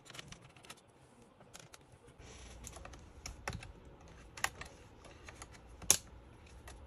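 Scattered small clicks and taps of a hand tool and fingers on an open laptop's plastic chassis and metal heatsink, with a few sharper clicks about three and a half, four and a half and six seconds in; the loudest comes near six seconds.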